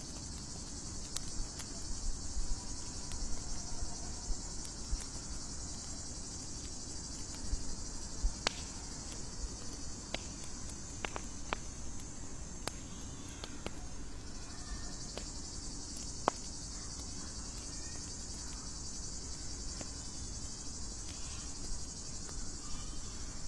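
A steady high chorus of night insects, crickets among them, thinning briefly about halfway through and then returning. Scattered sharp pops from a crackling campfire sound over it.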